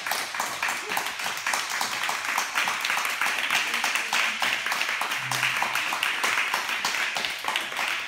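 A small audience applauding: many hands clapping in a steady, dense patter.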